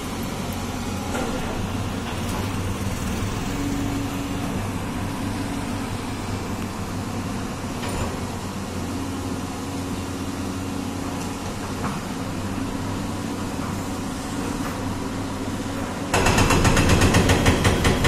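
Tracked excavator's diesel engine running steadily with a low hum. About two seconds before the end, a much louder, rapid and regular pounding starts as the machine works against the concrete frame.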